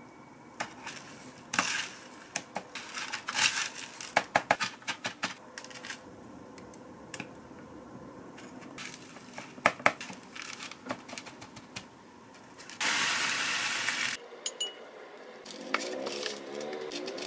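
Wooden chopsticks clicking and clinking against a glass bowl of beaten egg as bread cubes are dipped and lifted out, in quick runs of sharp taps. About two thirds of the way in comes a steady rustling hiss lasting a second or so, followed by softer crumbly sounds as the egg-soaked bread is pressed into cornflake crumbs.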